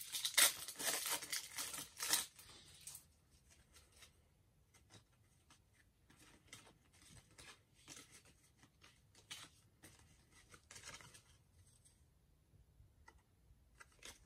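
Foil trading-card pack wrapper being torn open and crinkled, loudest in the first three seconds, then faint rustling as the cards inside are handled.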